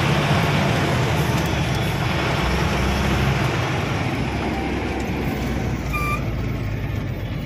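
Truck engine running and road noise heard from inside the cab while driving, a steady low rumble. A brief high beep sounds about six seconds in.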